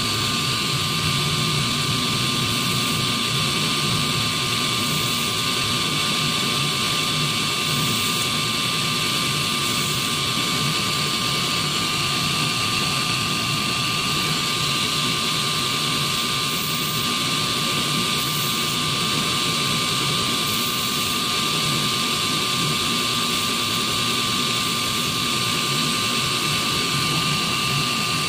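Small motorised grinding stone running at speed with a steady high whine and hiss, while the tip of a 1.0 mm drill bit is held against the stone to resharpen it.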